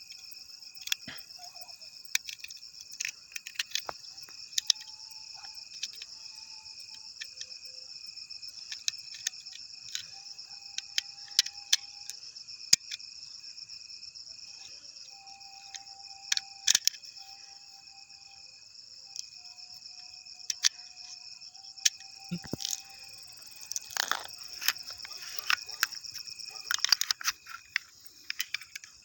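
Steady insect chorus, like crickets, with many sharp clicks and knocks scattered through it that come thickest near the end.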